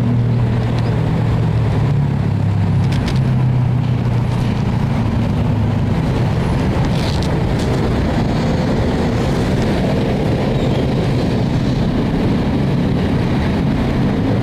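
A steady, loud rumble with an engine-like hum, as from motor traffic. The hum is strongest in the first half and eases off about six seconds in.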